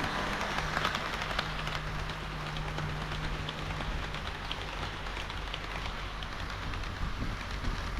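HO-scale model train running on the track: a steady rattling rush of wheels on rail with scattered small clicks, over a low steady hum that stops about six seconds in.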